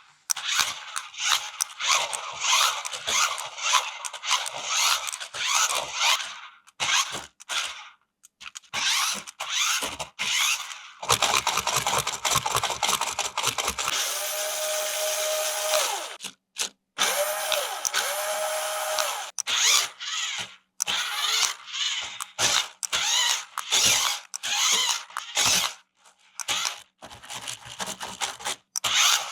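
Plastic parts of an RC toy vehicle being handled, with rapid clicking and rubbing. In the middle a small electric motor whirs steadily for about two seconds, stops briefly, then whirs again.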